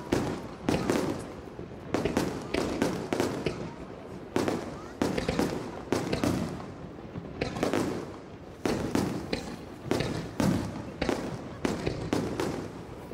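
Festival fireworks bursting one after another: many sharp bangs, each trailing off in an echoing decay, with a short lull past the middle.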